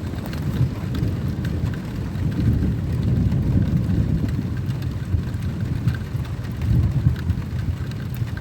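Thunderstorm: rain falling, with scattered sharp drop ticks over a continuous low rumble of thunder.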